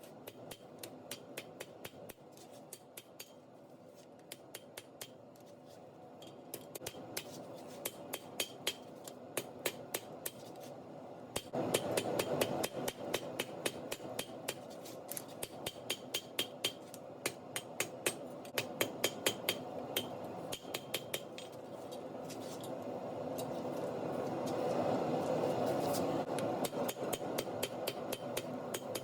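Hammer blows on hot steel, a rapid, even rhythm of about three metallic strikes a second, while a damascus billet is being forged into a knife. A steady background rumble runs underneath and swells near the end.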